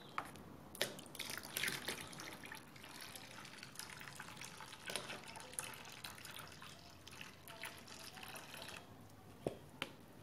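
Foamy liquid soap scooped up in a plastic tub and poured back into a plastic basin in a thin stream, with irregular splashing and dripping and a few light plastic clicks.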